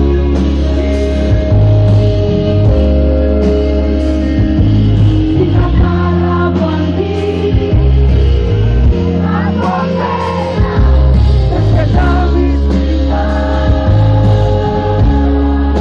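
Live band playing with a woman singing lead at the microphone, over strong, sustained bass and held chords.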